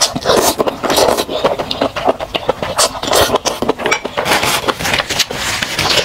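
Close-miked slurping of a mouthful of spicy instant noodles, then wet chewing and mouth smacking: a dense, uneven run of clicky, wet mouth sounds.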